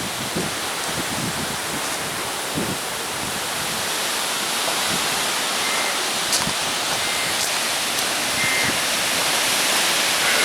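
Severe thunderstorm wind blowing hard, a steady rushing hiss that slowly grows a little louder toward the end.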